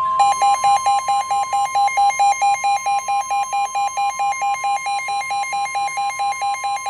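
Weather-warning alert tone: a steady high tone with a second tone pulsing on and off about six times a second over it, announcing a severe thunderstorm warning. The pulsing stops near the end while the steady tone holds.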